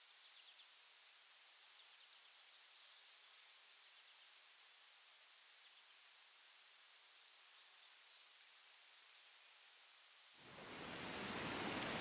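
Faint insect ambience: a high, steady trill with a cricket chirping regularly, about four chirps a second. About ten seconds in, the rushing water of a mountain stream swells in and drowns it out.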